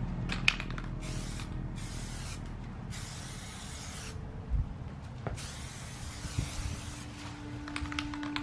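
SEM Trim Black aerosol spray can spraying a second coat of flat black paint in four hissing bursts. The last burst, near the end, is the longest at about a second and a half.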